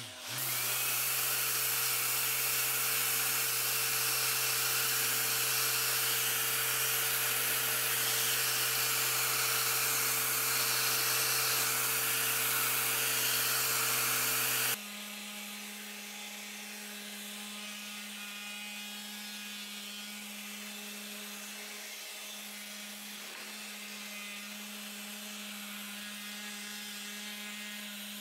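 Random orbital sander with a 360-grit disc spinning up and running steadily while sanding the metal face of an old vise. About halfway through the sound drops suddenly to a quieter, lower steady hum as the sanding goes on.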